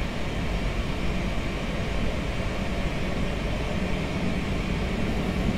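Steady hum of a Boeing 737NG's jet engines at low taxi thrust, reproduced by a flight simulator's sound system, with a low rumble underneath.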